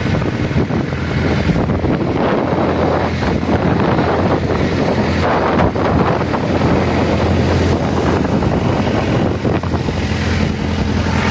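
Wind buffeting the microphone over the steady low drone of a wooden fishing boat's engine, with the rush of sea water alongside.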